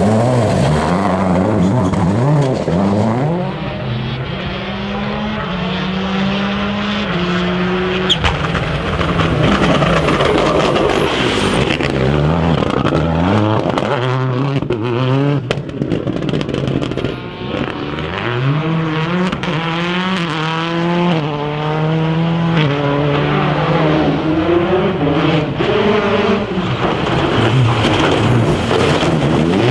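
Rally car engines at full throttle on a stage: revs climbing again and again and dropping at each gear change or lift, with no let-up.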